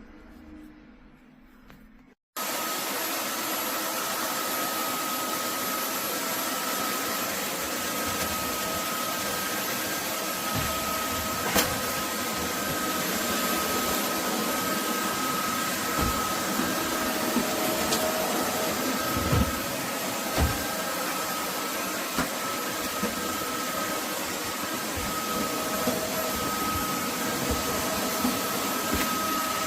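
Roborock F25 GT cordless wet-dry vacuum mop running in auto mode: a steady whir with a constant high tone, starting abruptly about two seconds in, with a few short knocks and a click.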